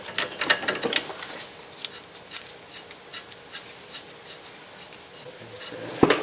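Hand ratchet with a 13/16 socket clicking in short runs as the upper ball joint nut is loosened, with a sharp knock near the end.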